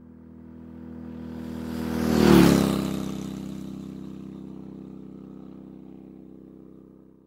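A motor vehicle's engine passing by. It grows louder, peaks about two and a half seconds in with a drop in pitch as it goes past, then fades away.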